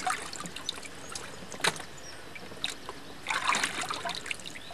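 Water splashing in a plastic tub as a shad is handled in it: a splash at the start, another a little before halfway, and a longer run of splashing near the end.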